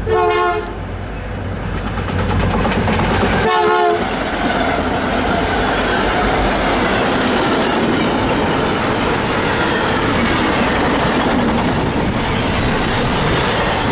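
Union Pacific freight train's air horn sounding two short blasts about three seconds apart as the train approaches. Then the diesel locomotive passes and double-stack container cars roll by with a steady noise of wheels on the rails.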